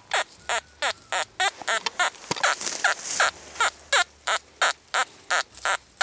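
Metal detector giving a rapid series of short, pitch-gliding beeps, about three a second, as its search coil is swept over a buried metal target. The detectorist suspects the target is an arrowhead.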